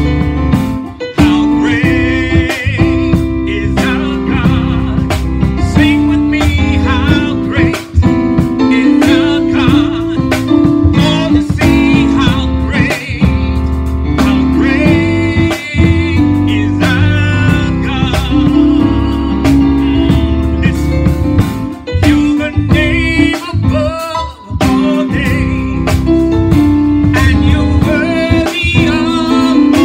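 Gospel song: singing over instruments with a strong bass line and a steady beat.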